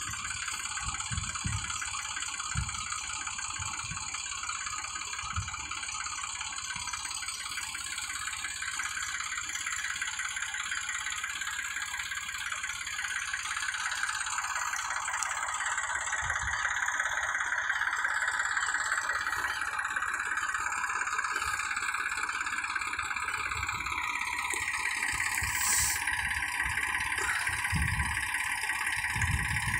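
Tractor-powered crop sprayer running: a steady rattling whir of the tractor engine and spray pump that grows louder over the second half, with a few low thumps.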